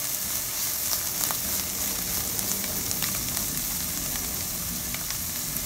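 Chopped garlic, onion, green chiles and cilantro sizzling as they fry in a pan, stirred with a spatula. The sizzle is steady, with small crackles scattered through it.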